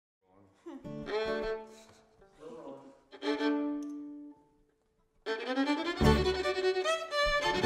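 Fiddle playing short phrases with sliding notes, in a bluegrass and roots style. About six seconds in, a bass and the rest of the band come in under it.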